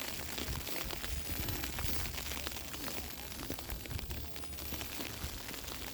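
Snow falling: a steady hiss dotted with many faint ticks of snow landing, over a low rumble.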